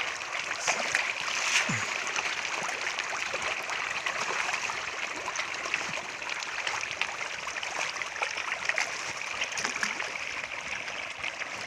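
Water running and splashing steadily, with small splashes and drips.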